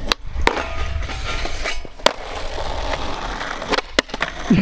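Skateboard wheels rolling on concrete, broken by several sharp clacks of the board's tail and deck hitting the ground. Two clacks come close together near the end as a flatground trick lands.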